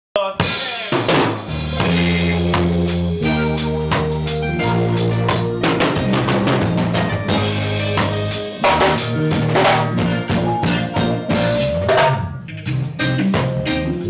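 Live band jamming: a drum kit with snare, kick drum and cymbals keeps a steady beat under bass guitar lines and keyboard chords.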